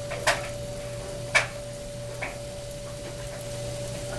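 Pieces of raw sliced bacon dropped by hand into a nonstick pot: three short taps about a second apart, the second the loudest, over a steady low hum.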